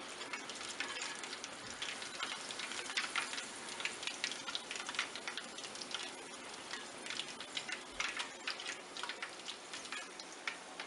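Chicken pieces deep-frying in hot oil: a steady sizzle with constant crackling pops.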